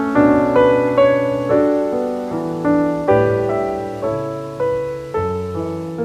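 Piano music: single notes and chords struck about twice a second, each ringing and fading before the next.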